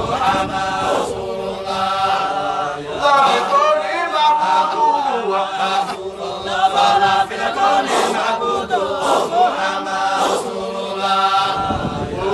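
Sufi dhikr chanted by a group of voices, continuous and melodic, with the chant line rising and falling.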